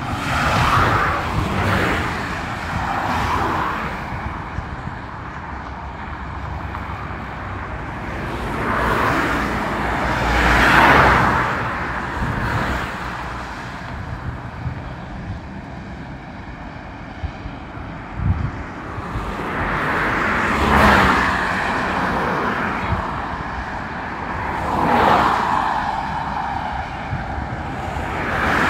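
Cars passing one after another at speed on a multi-lane highway: a steady traffic rush with about six swells of tyre and engine noise, each rising and falling away over a second or two.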